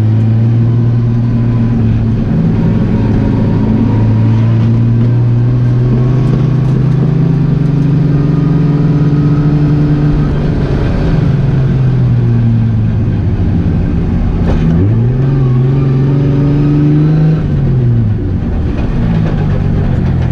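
Drift car engines running at high revs, holding steady notes for stretches and rising and falling in pitch as the throttle is worked.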